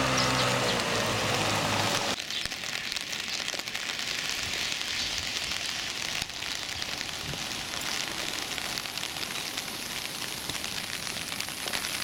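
Steady hiss of rain falling on a wet road. A low engine hum of waiting vehicles cuts off abruptly about two seconds in, leaving only the rain.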